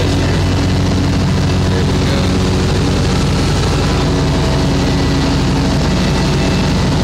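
Spartan SRT XD zero-turn mower's 33-horsepower Vanguard V-twin engine running steadily at an even speed while mowing.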